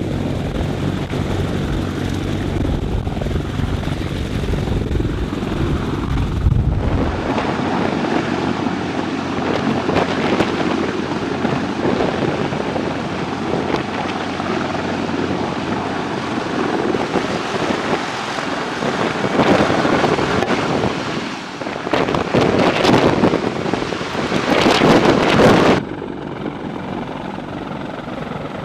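Helicopter running: a steady low hum for the first several seconds, then a cut to a noisier rushing sound that grows louder in swells and drops off suddenly near the end.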